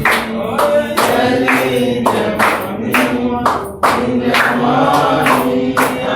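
A group of voices singing together in chorus, with hand claps on the beat about twice a second.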